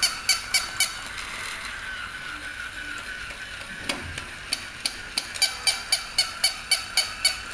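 Battery-powered jumping toy dog: its small motor whines steadily and its gear mechanism clicks rapidly, about four clicks a second. The clicking pauses for a few seconds, a thump comes around four seconds in, and the clicking then resumes.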